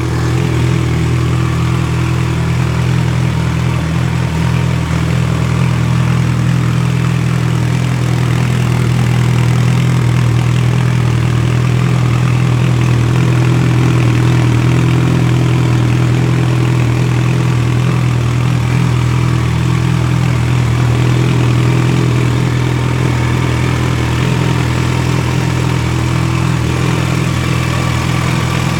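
2009 Yamaha FZ1's inline-four engine idling steadily through a full Micron aftermarket exhaust with Micron headers.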